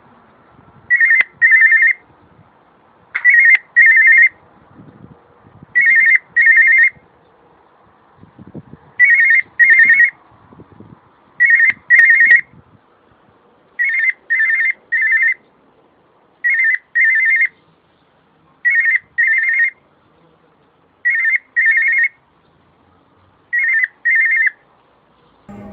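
Cockatiel imitating a telephone ring: high trilled double rings repeated about every two to three seconds, ten times, one of them with three trills instead of two.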